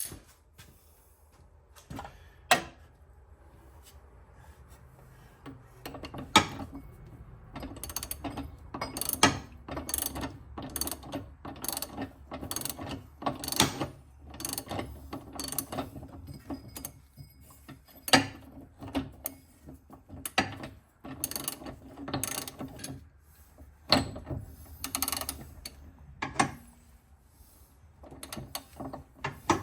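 Hand socket ratchet clicking in irregular bursts as a nut is worked, with a few sharper metal knocks. The clicks are sparse at first and come steadily from about six seconds in.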